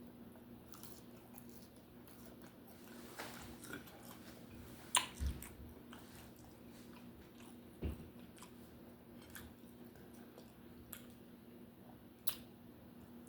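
Close-up chewing and biting on a cheeseburger and fries, a scatter of soft wet clicks with a few louder bites or knocks, about five seconds in and near eight seconds. A steady low hum runs underneath.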